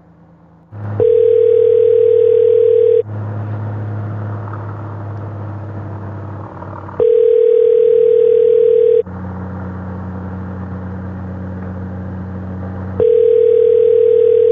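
Telephone ringback tone of an outgoing call: three steady two-second rings about four seconds apart, with a steady low hum of the moving motorcycle between them. The call is ringing unanswered.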